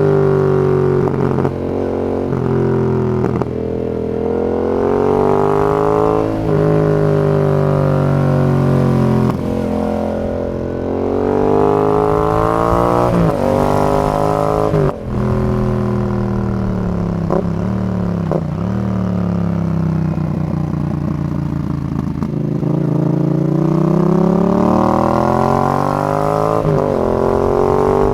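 Yamaha XSR 700's 689 cc parallel-twin engine through a Zard full exhaust system, accelerating and shifting while being ridden: the pitch climbs, drops sharply at each gear change, and climbs again several times. In between it winds down in long falling sweeps as the throttle closes, with a patch of fine crackling while decelerating near the middle.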